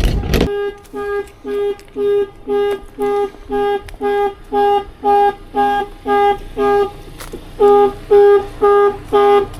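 Car alarm going off: the car's horn honks in a steady rhythm, about two short honks a second. The alarm is glitching and will not switch off. A short loud knock sounds right at the start.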